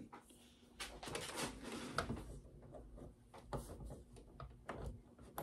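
Faint handling noise of a cable being plugged into a bare desktop computer power supply: scattered light clicks and rustles of plastic and metal, with a sharper click near the end.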